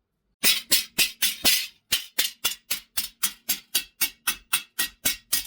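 Hand hammer striking the steel sickle blade on an anvil in a rapid, even series of about four blows a second, with a faint ring between blows.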